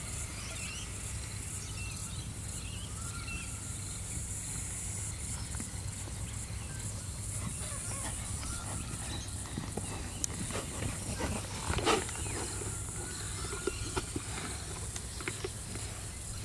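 Horse trotting on a sand arena: soft, irregular hoofbeat thuds grow plainer from about halfway through, with one louder burst near the end. Birds chirp in the first few seconds over a steady high insect drone.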